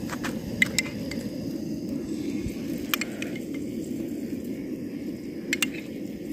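Steady low rushing background noise, with a few light clicks and taps of a spoon against a container: a pair early on, one about three seconds in, and a close pair near the end.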